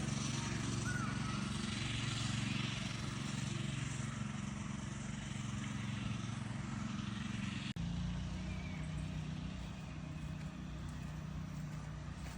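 A car running on the road: steady engine and tyre hum. The hum changes abruptly to a slightly different, lower drone about eight seconds in.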